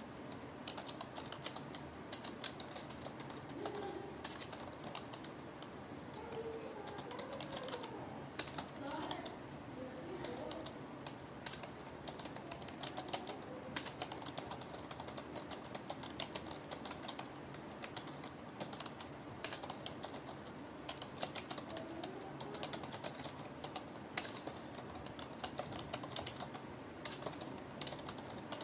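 Computer keyboard being typed on at a calm, unhurried pace: an irregular stream of key clicks.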